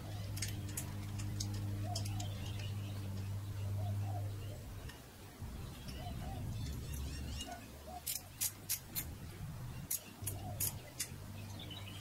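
Light metallic clicks and ticks of a brake pedal safety wire being handled and threaded at a dirt bike's rear brake pedal, coming as a quick run of sharp clicks in the second half. A low steady hum runs underneath and drops out for a few seconds in the middle.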